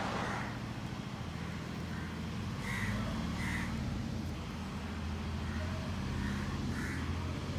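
A motor engine running steadily, a low hum, with two pairs of short high calls about three seconds in and again near the end.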